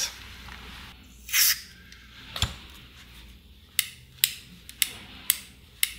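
A short hiss of contact-cleaner spray, then a click, then five sharp clicks about half a second apart as the transistor radio's volume control is worked back and forth to clean its contacts.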